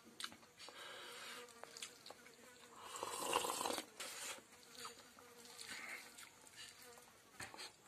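Fingers mixing and pressing cooked rice and fried food on a plate, in short scattered rustles, the loudest about three seconds in.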